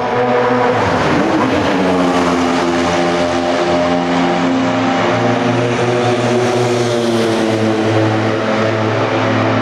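Jaguar XJR-16's 3-litre twin-turbo V6 racing engine running hard at high revs. Its pitch dips and swings about a second in, then holds a steady note.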